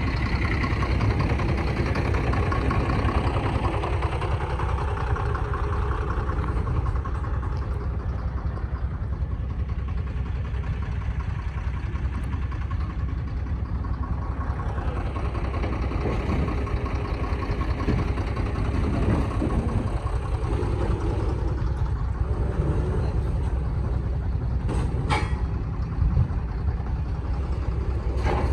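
An engine idling steadily with a low rumble, a couple of sharp clicks near the end.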